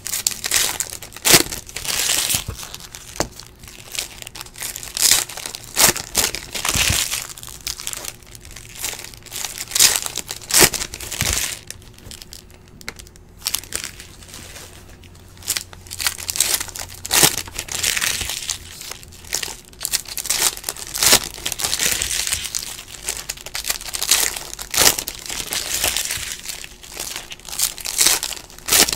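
Foil wrappers of Panini football card packs crinkling and tearing as they are ripped open by hand, in repeated bursts of rustling with a short lull about halfway through.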